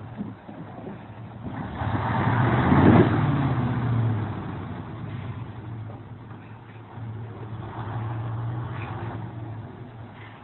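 Heavy logging truck's engine revving as the truck pulls out from under its load of logs, with a loud rough rumble peaking about three seconds in as the logs slide off the back of the trailer. The engine revs up again briefly near the end.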